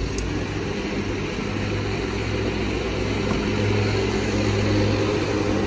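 Lawn mower engine running steadily nearby, an annoying droning hum that grows a little louder in the second half.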